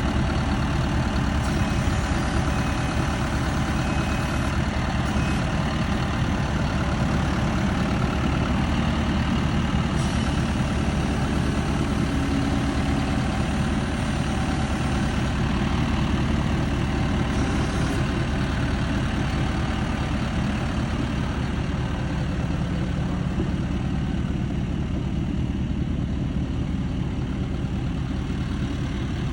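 Large farm tractor's diesel engine running steadily, moving a big hay bale.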